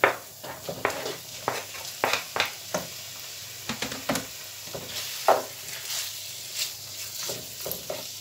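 Diced raw chicken breast tipped into hot oil and onions in a nonstick frying pan, sizzling, while a wooden spoon stirs it with repeated scrapes and knocks against the pan. The sharpest knocks come right at the start and about five seconds in.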